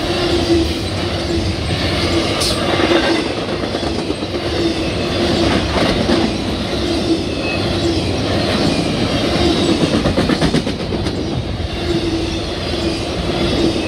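Loaded intermodal well cars of a CSX stack train rolling past: a steady rumble and clatter of steel wheels on the rails. A hum comes and goes, and about ten seconds in a quick run of clacks sounds as wheels cross a rail joint.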